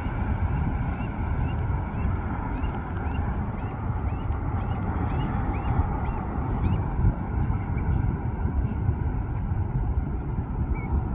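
Freight train of autorack cars rolling away along the track, a steady rumble of wheels on rail. For the first several seconds a thin, high squeak repeats about twice a second over it, then stops.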